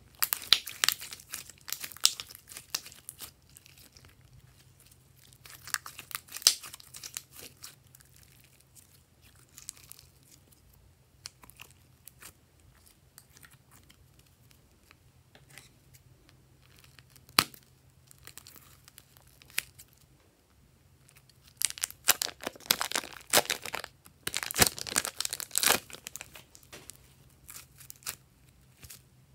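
Glossy slime being squeezed, folded and stretched by hand, crackling and popping in bursts of sharp clicks with quieter stretches between, densest about 22 to 26 seconds in. A faint low hum runs underneath.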